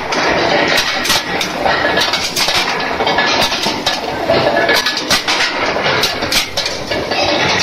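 Skew rolling mill running, rolling hot steel bar into grinding balls: a steady mechanical clatter with frequent sharp metal clinks, several a second.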